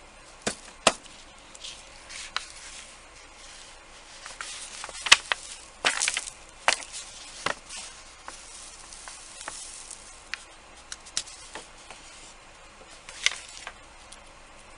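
Scattered light clicks, taps and brief scrapes of small objects handled on a work surface, irregular, with a sharper knock about five seconds in.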